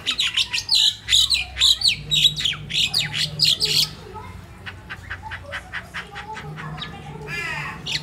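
Caged crested myna calling: a fast run of loud, sharp chattering notes for about four seconds, then quieter clicking notes and one longer call near the end.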